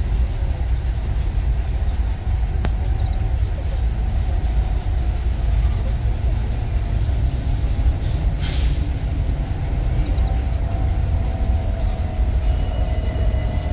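Freight train of empty freight cars rolling along the near track, a steady low rumble of wheels on rail. There is a brief high hiss about eight seconds in and a faint thin squeal near the end.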